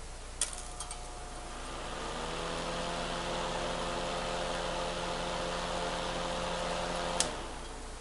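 Utility space heater's fan motor starting after a click, rising in pitch as it comes up to speed, then running with a steady hum. About seven seconds in, a sharp click as the refurbished thermostat's points open, and the motor cuts off at once.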